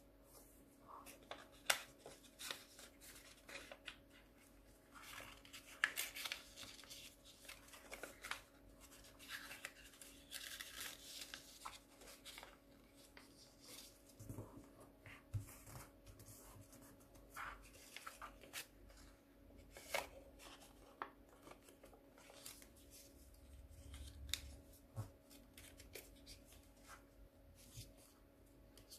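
A sheet of origami paper being folded and creased by hand: scattered crinkles, rustles and sharp little clicks of the paper, over a faint steady hum.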